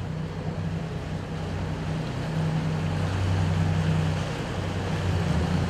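A fishing boat's engine running with a steady low hum, over the wash of water and some wind.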